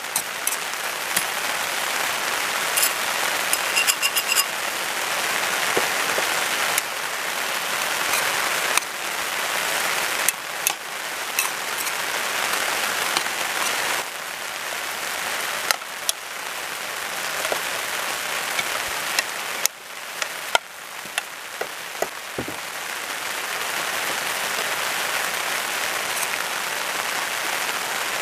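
Sliced beef and onions sizzling steadily in a frying pan as they are stir-fried, with scattered clicks and scrapes of metal tongs against the pan.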